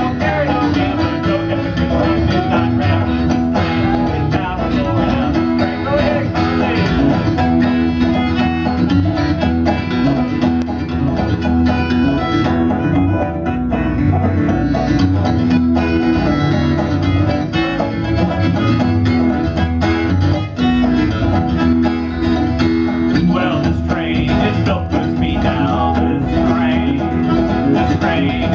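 Small acoustic band playing a bluegrass-style song: picked banjo and strummed acoustic guitar with a soprano saxophone carrying sustained melody lines.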